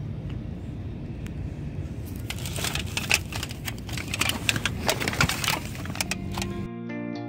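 Rapid crackling and crunching close to the microphone for a few seconds while the camera is moved about, over a low steady rumble. Plucked guitar music begins near the end.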